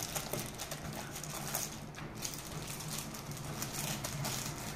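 Clear plastic bags wrapped around cables crinkling and rustling as they are handled, with irregular small crackles and clicks throughout.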